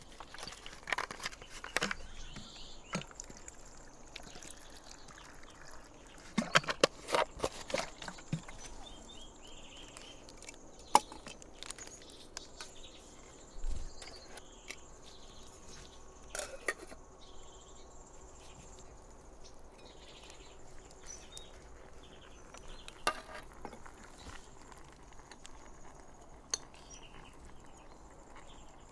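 Steady high insect buzz, like crickets, with scattered short knocks and clinks of cookware being handled at a small wood stove, a cluster of them about seven seconds in.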